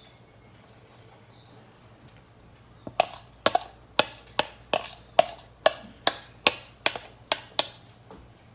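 Metal spoon knocking and scraping against a mixing bowl, about a dozen sharp knocks at two to three a second starting about three seconds in, as the last of the ice cream mixture is scraped out.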